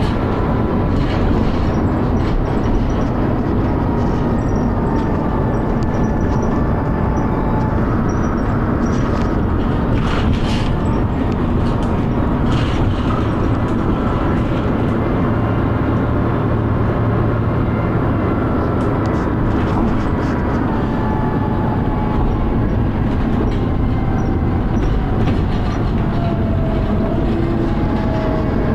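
Dennis Arrow bus running under way: a steady, heavy engine and road rumble. Over it sits a faint whining tone that drifts in pitch and rises and falls near the end, the kind of strange high-pitched noise this bus is known for.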